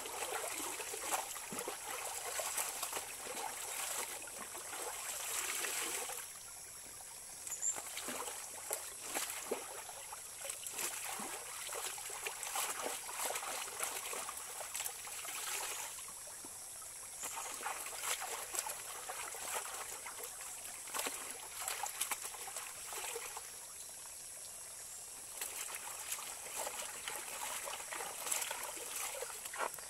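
Shallow rocky stream running, with the splashing and wet scrubbing of clothes being washed by hand in it. The scrubbing stops three times for a second or two, leaving just the stream.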